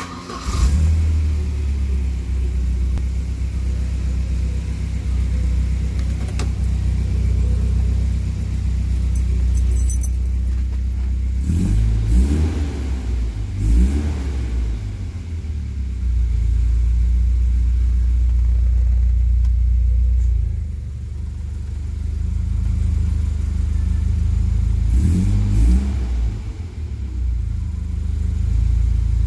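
Volvo 740 GLE engine started with the ignition key, catching within about half a second and then idling steadily. Brief wavering sounds come through a little before the middle and again near the end.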